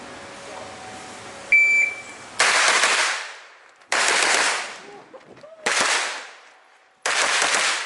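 A shot-timer beep about a second and a half in, the start signal, then four bursts of fire from a pistol-caliber carbine, each a rapid string of shots ringing off, about a second and a half apart.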